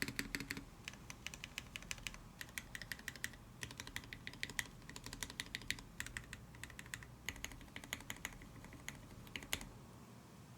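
Typing on a Tsukuyomi mechanical keyboard with lubed SP Star Nana switches in a top-mounted full aluminium plate, no dampening, and GMK-style keycaps: quick runs of key clacks in short bursts with brief pauses, stopping near the end.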